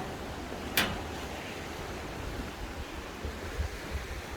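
Steady wash of sea surf with wind on the microphone, and a single sharp click a little under a second in.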